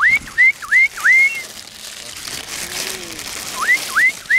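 A person's squeaky whistles calling a mink, each a short upward-sliding 'wheep': five quick ones, a pause of about two seconds, then four more near the end.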